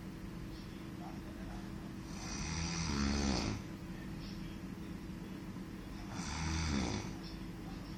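A man snoring in his sleep: two long, rough snores about four seconds apart, one with each breath.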